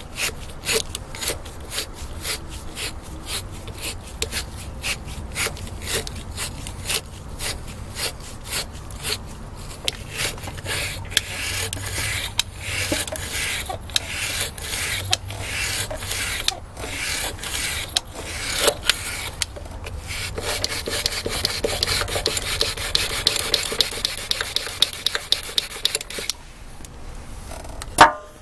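A small wire brush spun by a power drill scraping rust out of the free-wheeling pin hole in a Bolens 1050 tractor's cast wheel hub, rasping in quick repeated strokes that become steadier near the end. A single sharp knock just before the end.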